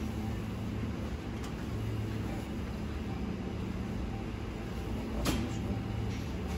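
Steady low hum of a supermarket's refrigerated display cases and ventilation, with a faint click about a second and a half in and a sharper knock a little after five seconds.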